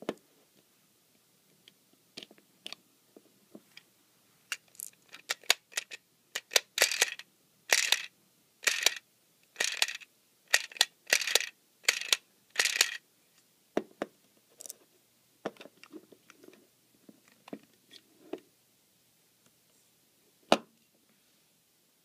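A small plastic Anpanman toy washing machine being handled: scattered plastic clicks and short rattles, a run of louder rattling about a second apart in the middle, and one sharp click near the end.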